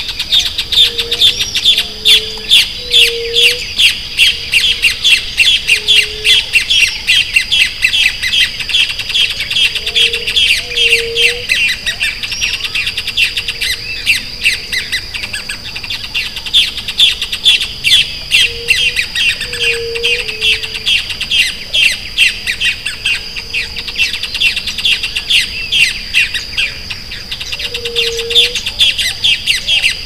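A chorus of wild birds chirping rapidly and without pause, with a steady high-pitched tone underneath. A low short call repeats every few seconds, in pairs near the start, around ten seconds in, around twenty seconds in and near the end.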